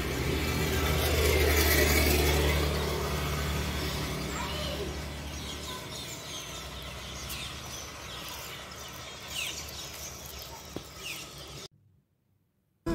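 Outdoor sound of a motor vehicle passing on the road: the engine hum is loudest about two seconds in and fades away by about six seconds. Small birds chirp through the second half, and the sound cuts off suddenly near the end.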